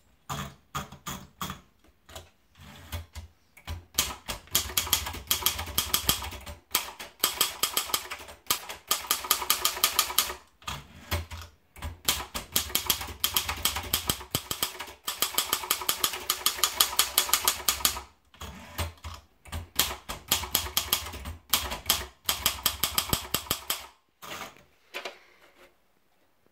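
Sperry Remington typewriter being typed on: quick runs of sharp keystrokes in several bursts with short pauses between them, stopping near the end.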